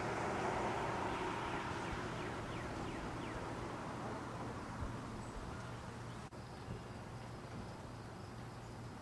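Outdoor background noise with a steady low hum and a few faint high chirps in the first few seconds. It cuts out briefly a little past six seconds in.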